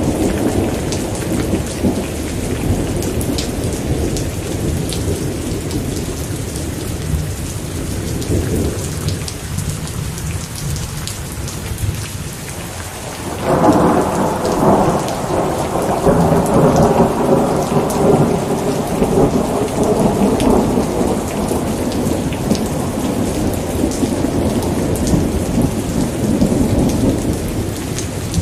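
Steady rain in a thunderstorm. A low roll of thunder dies away over the first half, then a new clap breaks suddenly about halfway through and rumbles on for over ten seconds.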